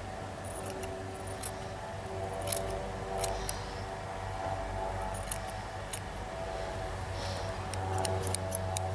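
Grooming scissors snipping through a small dog's belly fur: short, sharp snips spaced out by a second or so, then a quicker run of snips near the end.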